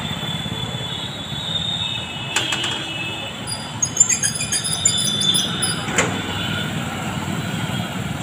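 Night street traffic: motorcycles, scooters and cars passing at low speed with a steady engine rumble. A thin, high squeal runs through the first few seconds, and a couple of sharp clicks and some chirpy high tones come near the middle.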